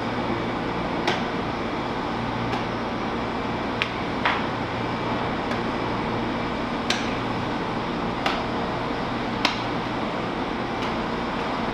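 Steady background hum with a short sharp click about every one to one and a half seconds: a plastic juggling club smacking into the hand as it is caught during unicycle juggling.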